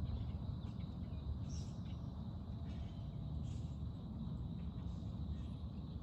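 Outdoor nature ambience: a steady high insect drone under a low rumble, with brief high bird chirps about one and a half seconds in and again midway.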